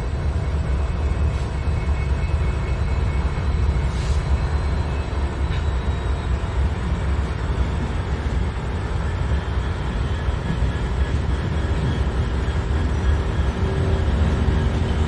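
Diesel-electric freight locomotives, a Norfolk Southern unit leading a BNSF unit, rolling slowly into the yard with their engines running in a steady low rumble.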